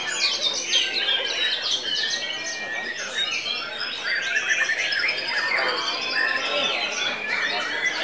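Several caged white-rumped shamas (murai batu) singing at once: a dense, continuous mix of loud overlapping whistles, trills and quick rising and falling glides.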